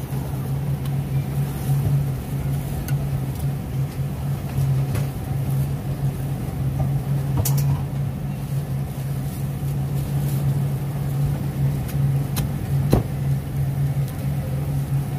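A steady low hum with a few sharp metal clinks as steel skewers and a cleaver knock against the roasting pan; the loudest clink comes near the end.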